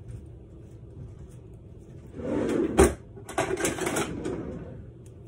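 Kitchen handling noises: a rustling scrape about two seconds in, a single sharp knock, then a second burst of rattling clatter.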